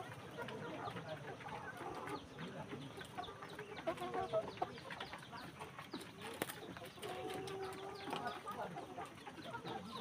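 A flock of chickens clucking and calling over one another, with short overlapping calls throughout and one longer drawn-out call about seven seconds in.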